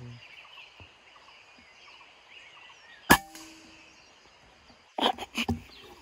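A single shot from a PCP air rifle about three seconds in: one sharp crack with a brief ring after it. About two seconds later come several loud knocks and rustles as the rifle is moved.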